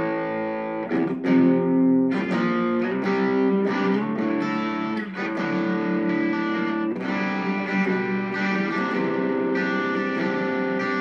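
Korean-made Legend Les Paul Custom electric guitar played through a light overdrive: picked chords ring and sustain, changing every second or two.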